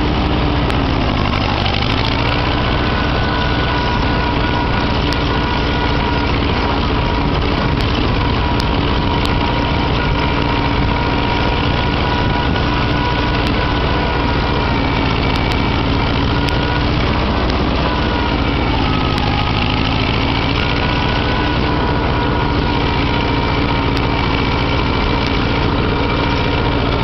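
Farmall Cub tractor's small four-cylinder engine running steadily as the tractor is driven across grass; the engine note dips briefly twice, about a second in and again about two-thirds of the way through.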